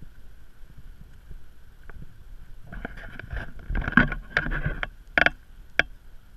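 A boat's engine running with a steady low rumble and a thin steady whine on top. In the second half comes a cluster of knocks and bumps, then two short sharp clicks near the end.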